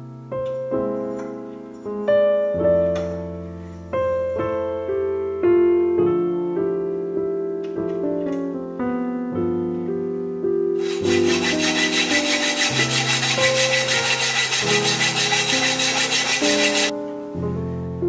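Solo piano music playing. About eleven seconds in, a loud rhythmic rubbing or scraping noise joins it, pulsing about five times a second for some six seconds, then stops.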